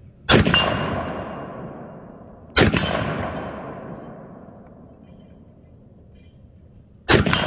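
Rifle fired three times at targets: two shots about two seconds apart, then a third near the end. Each report echoes and dies away over a couple of seconds.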